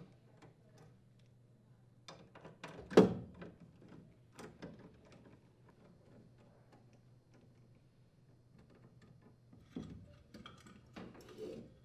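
Scattered light clicks and knocks of a nut driver and metal furnace parts being handled as the gas manifold screws are taken out and the manifold and gas valve are lifted from the burner box. The sharpest knock comes about three seconds in, with another group of clicks near the end.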